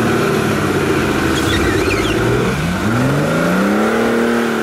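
Off-road 4x4 competition vehicle's engine revving, its pitch sagging and then climbing about three seconds in, held high and easing off near the end.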